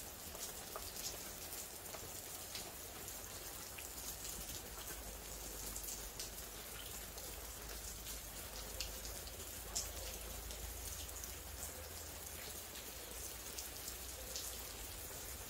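Water from overhead sprinklers falling like rain onto shiitake mushroom logs and wet soil: a steady patter of drops with many small, sharp ticks scattered through it.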